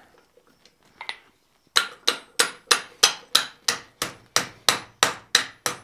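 Hand hammer striking a red-hot steel bar to bend it around a 1.5-inch square steel tube jig on the anvil, forming a hook. After a quiet start, about a dozen sharp metallic blows come at a steady rate of about three a second, beginning nearly two seconds in.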